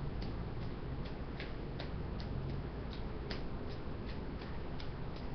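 Three balls juggled in a cascade: each catch in the hands is a short tick, evenly spaced at about three a second, over a steady low hum.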